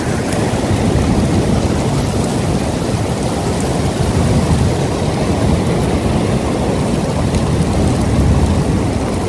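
Heavy rain pouring steadily, a dense, loud, unbroken hiss with a deep rumble underneath.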